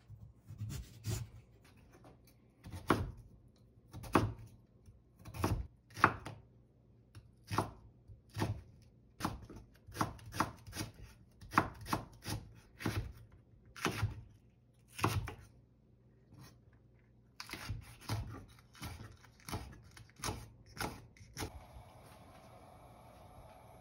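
Kitchen knife chopping sweet potato, then slicing onion, on a wooden cutting board: an unhurried series of single knocks on the board, about one a second, stopping near the end as a faint steady hiss begins.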